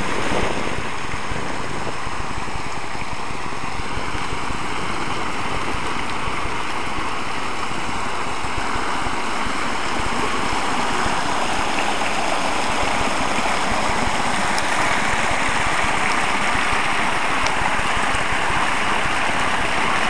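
Water from an outdoor fountain's waterfall cascading and splashing in a steady rush, a little louder in the second half.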